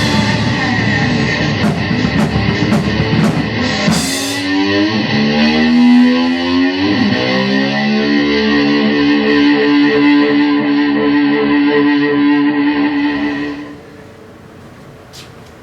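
Ending of a distorted-guitar rock song with live drums: a few sharp drum and cymbal hits in the first four seconds, then the guitar slides up and down in pitch and settles on a held final chord that rings out. About two seconds before the end the chord stops suddenly, leaving a faint hiss and a single click.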